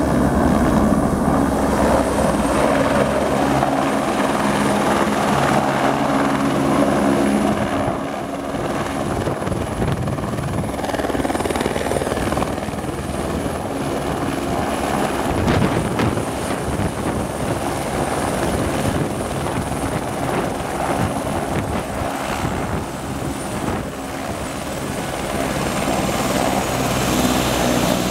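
Airbus H125 / AS350 B3 Esquilo helicopter landing: the steady beat of its main rotor under a high turbine whine as it hovers in and settles onto the helipad, rotor still turning. The whine drops slightly in pitch about two thirds of the way through.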